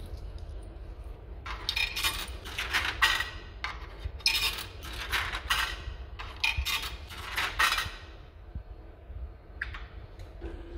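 Coins being fed into the coin slot of a coin-operated coffee vending machine, clinking and rattling as they drop through the coin mechanism. The clinks come in quick clusters over about six seconds, starting a second and a half in.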